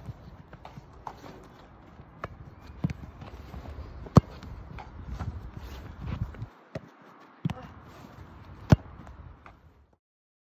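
Football being struck on an outdoor pitch, kicks and gloved catches making sharp thuds a few seconds apart over a low background rumble, the loudest hits about four seconds in and near the end. The sound cuts off suddenly near the end.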